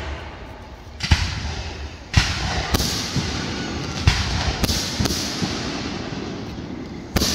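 Aerial fireworks shells bursting overhead: about seven sharp booms at uneven intervals of roughly a second, each trailing off in a rolling echo.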